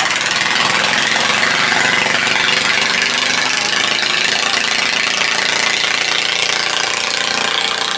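A small boat's engine running steadily, a loud, fast-pulsing mechanical drone.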